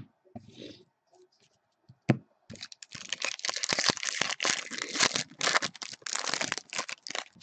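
A baseball card pack's wrapper being torn open and crinkled by hand: dense, continuous crackling from about two and a half seconds in. It is preceded by two sharp knocks of the cards being handled against the table.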